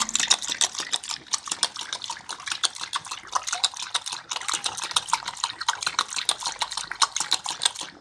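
A pit bull-type dog lapping water from a bowl, its tongue splashing into the water several times a second in a quick, steady rhythm.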